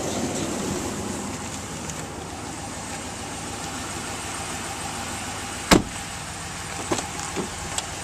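A pickup's rear door being opened: one sharp latch clack about two-thirds of the way in, then a few lighter clicks, over a steady background hum.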